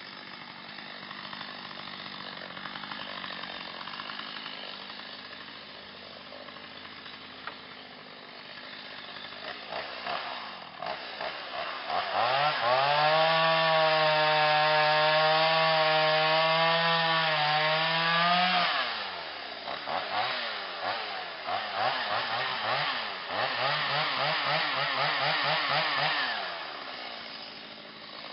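Chainsaw idling, then revved up about twelve seconds in and held at full throttle for about six seconds as it cuts into the top of a suspended dead tree, pitch wavering slightly under load. It drops back, then gives several shorter bursts of throttle near the end.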